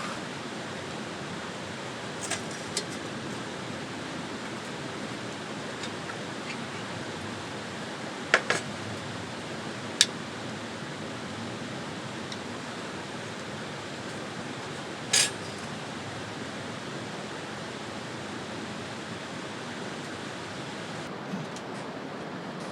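Steady rushing hiss with a handful of short, sharp clinks and knocks of camp gear being handled, the loudest near the middle.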